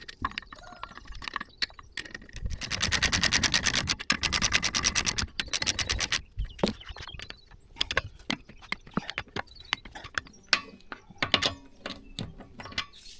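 Metal hand tools working on a car's rear brake assembly: a run of rapid, even clicking for about three seconds, then scattered sharp metallic clicks and knocks.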